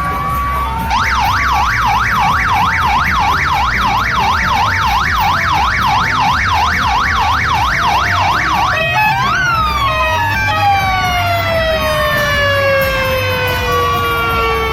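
Electronic siren yelping rapidly up and down, about three sweeps a second, for most of eight seconds. It then switches to a single short rise and a long, slow falling wail.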